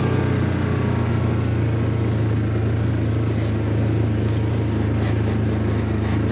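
Side-by-side utility vehicle's engine running at a steady pace while riding, a constant low drone heard from on board.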